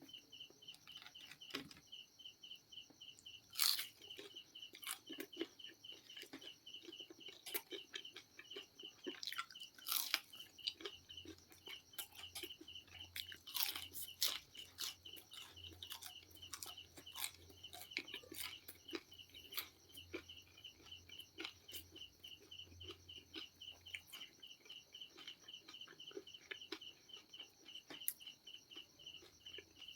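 KFC fried chicken being bitten and chewed close to the microphone, with irregular crisp crunches. A cricket chirps steadily in the background.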